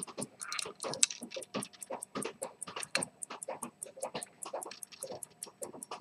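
Zenith pocket watch's lever escapement ticking steadily, about five ticks a second, with lower clicks of the hinged case lid being handled and one sharper click about a second in.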